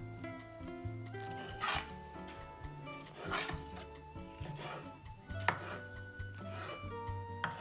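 Gentle instrumental background music, with about four scraping strokes and two sharp knocks from hand work.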